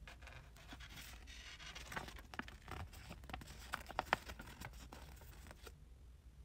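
Folded paper checklist being unfolded and handled: irregular paper crackling and rustling, with a few sharper crinkles about four seconds in, stopping shortly before the end.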